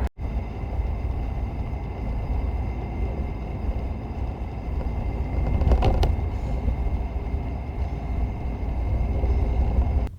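Steady low rumble of a car moving along the road, heard from inside the cabin, with a brief knock about six seconds in.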